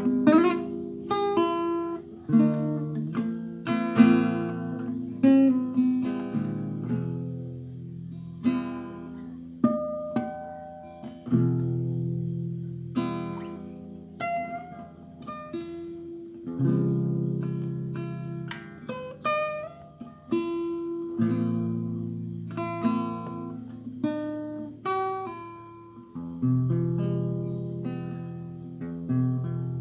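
Acoustic guitar played solo, a run of plucked notes and chords, each struck sharply and left to ring and fade.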